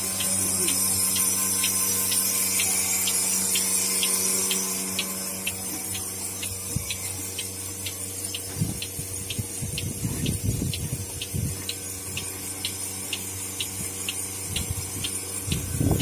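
Portable bucket milking machine running: the steady hum of its vacuum pump with a hiss of air, and the pulsator clicking about twice a second. From about halfway in, milk squirts into a metal pail from hand milking, louder near the end.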